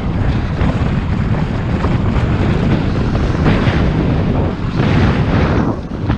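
Wind buffeting the microphone of a camera mounted on the outside of a moving car at about 35 km/h, over a steady rumble of tyres and engine. The noise swells twice, about three and a half and five seconds in.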